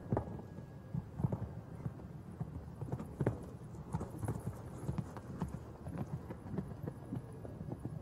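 A show-jumping horse cantering on sand arena footing: a run of dull, irregular hoofbeats with a few sharper knocks among them.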